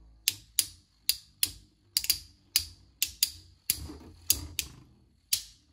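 Metal Fight Beyblade spinning tops, Fang Leone 130W2D and Proto Nemesis, clashing in a plastic stadium during a battle: a string of sharp metal clacks, irregular, about two or three a second.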